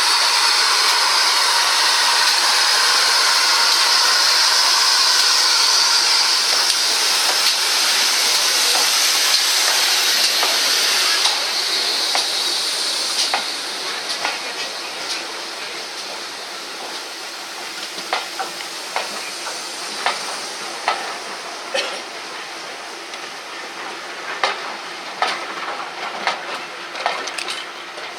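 Steam escaping from a steam locomotive with a loud, steady hiss that dies away after about eleven seconds, leaving a quieter rumble broken by many irregular clicks and knocks.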